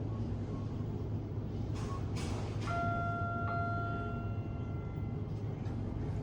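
Elevator arrival chime: a single clear tone that sounds about two and a half seconds in and rings for about two seconds, over a steady low hum. A few short clicks come just before the chime.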